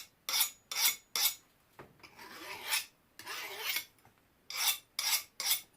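Hand file scraped across a freshly quenched steel knife blade in a file test: several quick short strokes, two longer slower strokes in the middle, then quick strokes again. The file skates and grabs rather than cutting, the sign that the quench has hardened the steel.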